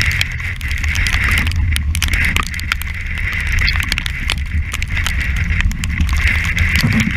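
Strong wind buffeting a deck camera's microphone on a sailing yacht in heavy weather: a steady heavy rumble under a wavering whistle that rises and falls, with many short ticks and splatters of spray hitting the camera.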